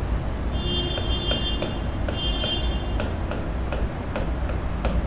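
Marker writing on a board: a run of short scratchy strokes and ticks, with two brief high squeaks near the start, over a steady low hum.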